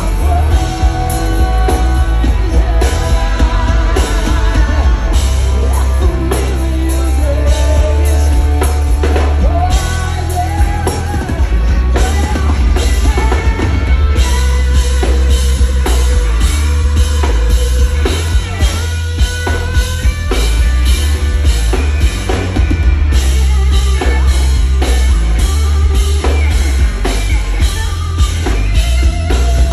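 Live hard rock band playing: a woman singing with loud drums, electric guitar and a heavy low end.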